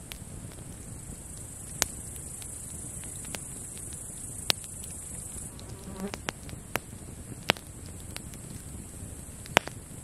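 A wood campfire crackling, with a few sharp pops a couple of seconds apart, over a steady high-pitched buzz of grasshoppers stridulating. The insect buzz swells for a few seconds, then drops off suddenly about halfway through.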